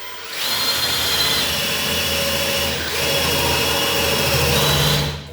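Power tool with a 7/8-inch bit boring into the edge of a plywood door for the lock's latch hole: a steady high-pitched motor whine with cutting noise, dipping briefly about three seconds in and stopping just before the end.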